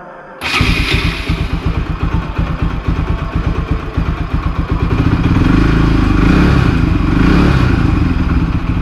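A single-cylinder motorcycle engine starts about half a second in and then keeps running with a quick, steady beat. It gets louder from about five seconds in, as if given a little throttle.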